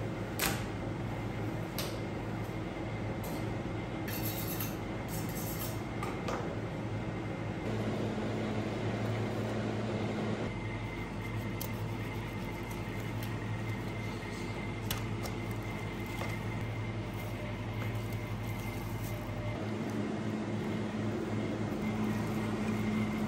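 Steady low hum of kitchen machinery, with scattered clicks, knocks and soft wet sounds as slabs of raw fat are handled and cut with a knife on a wooden butcher block.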